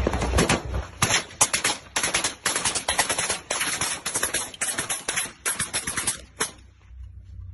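Automatic gunfire from a deck-mounted machine gun, fired in rapid repeated bursts that stop about six and a half seconds in.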